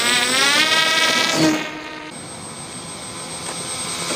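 Scratch-built Short Sherpa RC model plane's motor and propeller whining, the pitch rising over the first second or so. About two seconds in the motor drops away to a quieter hiss, then whines again near the end as the plane passes low overhead.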